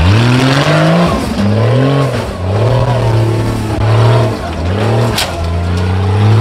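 Off-road 4x4's engine revving up and down in several surges, then holding a steady pitch near the end, with a sharp click about five seconds in.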